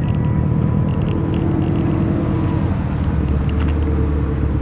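Subaru WRX STIs' flat-four engines rumbling at low speed as the cars roll past. The low note gets fuller about three seconds in, as a red hatchback passes close.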